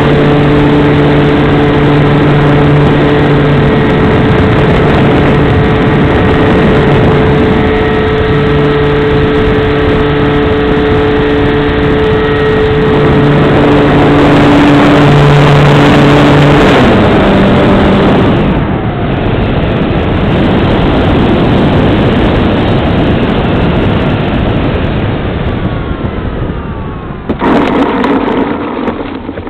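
Large RC model airplane's engine and propeller heard from a wing-mounted camera, running steadily at high throttle with wind rushing over the microphone. About 17 seconds in it is throttled back and the pitch drops and keeps falling. Near the end there is a loud rough rumble as the plane touches down and rolls across a dirt infield.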